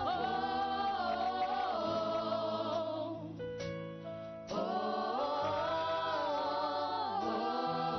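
A choir and congregation singing a gospel worship song with instrumental backing, holding long sustained notes.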